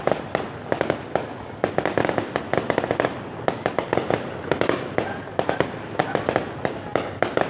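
Fireworks display: a rapid, unbroken run of sharp bangs and crackling cracks, several a second.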